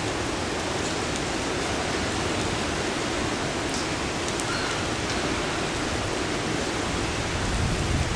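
Steady rushing wind outdoors, with gusts buffeting the microphone in an uneven low rumble that swells near the end.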